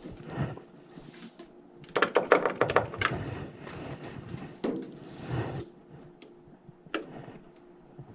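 Clattering and clicking of hard tools and parts being handled, a quick rattling run about two seconds in, followed by a few single knocks.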